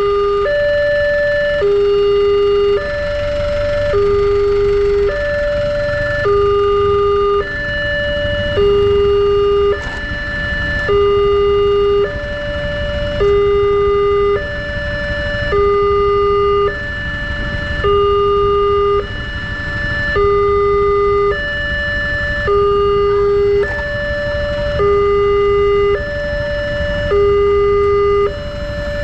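Wantech railway level-crossing alarm sounding its electronic two-tone warning: a higher and a lower tone alternate evenly, each lasting about three-quarters of a second, while the barrier is down for an approaching train.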